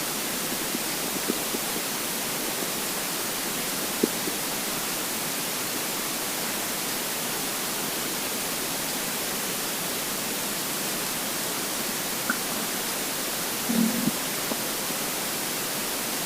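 Steady recording hiss, with one short, low gurgle from a hungry, empty stomach near the end and a small tick about four seconds in.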